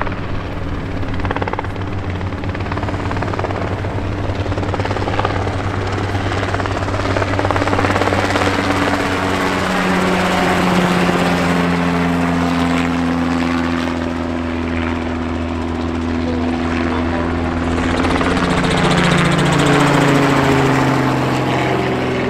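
Light helicopters flying past: a steady rotor and engine drone that swells twice, about a third of the way in and again near the end, its pitch dropping as each one passes.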